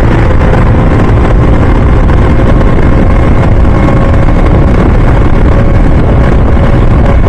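Steady riding noise from a two-wheeler on the road, heard through a helmet-mounted microphone: a continuous low rumble of engine, tyres and wind with a few faint steady tones.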